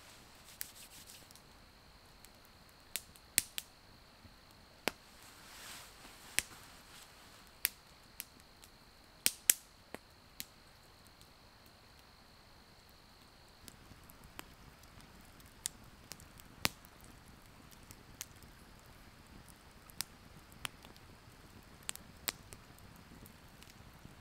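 Wood campfire crackling, with sharp pops at irregular intervals of about a second. A faint steady high tone stops about halfway through.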